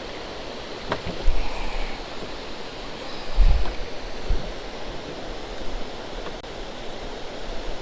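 Steady hiss of rain and wind over open water, with a few dull low thumps about a second in and again near the middle.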